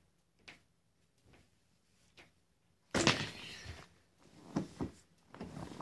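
A few faint clicks, then a sudden thump about three seconds in, followed by rustling and a few knocks: a person shifting and getting up off a couch close to the microphone.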